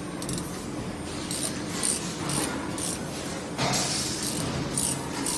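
Light metallic clinks and scrapes, about two a second, as tooling on a 12-axis camless CNC spring machine is handled during setup, over a steady low machine hum.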